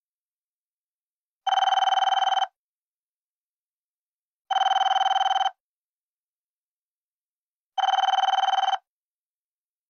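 Mobile phone ringing: three trilling rings, each about a second long and about three seconds apart, before it is answered.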